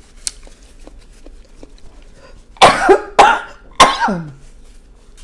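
A woman coughing hard three times in quick succession, the last two trailing off in a falling, voiced groan. She is choking on a heavily spiced seafood-boil sauce.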